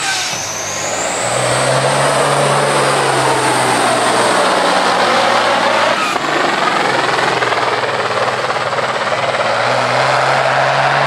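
Kenworth semi's Detroit Diesel Series 60 engine, built to about 1500 hp, running flat out under heavy load while dragging a truck-pulling sled. A high whistle rises over the first two seconds and then holds.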